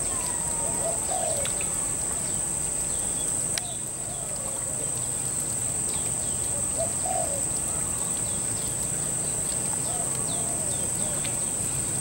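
Mixed bird calls, low cooing and short chirps, over a steady high-pitched insect drone.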